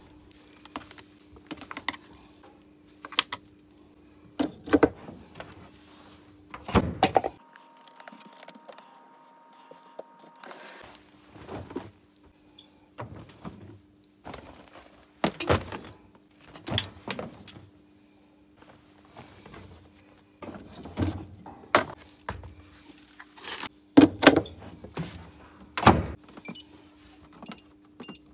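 Laundry being loaded by hand into a top-loading washing machine: scattered knocks and thuds of handling, the loudest near the end, over a steady low hum.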